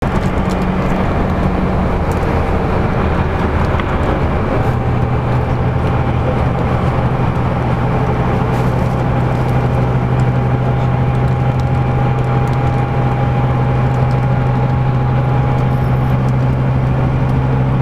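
Cabin sound of a LiAZ-5250 intercity bus driving at motorway speed: steady engine drone over tyre and road noise, with a faint whine. About four seconds in, the engine's hum drops to a lower pitch and then holds.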